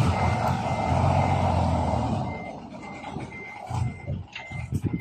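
Isuzu 10PE V10 diesel dump truck running loudly, then easing off about two seconds in, while its backup alarm beeps steadily at one pitch about three times a second. A few irregular knocks come near the end.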